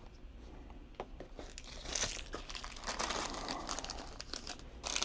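Thin plastic packaging bags crinkling as they are handled, starting about a second and a half in, with a few light clicks before.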